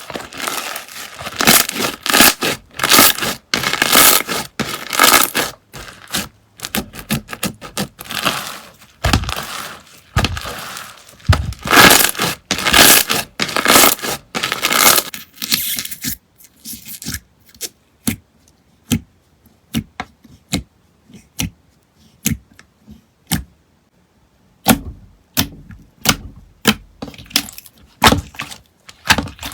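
Slime being squeezed and worked by hand, making dense crackling and crunching for about the first half. Then come separate sharp pops and clicks about two a second, which thicken into crackles again near the end.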